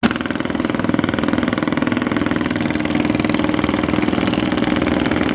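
A small boat engine idling steadily with an even, fast chug.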